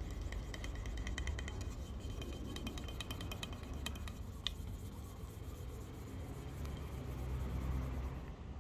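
Hand scraper drawn along a padauk wooden hatchet handle: a rapid run of scratchy ticks with a faint squeak, thinning out after a sharp click about halfway through, over a low rumble.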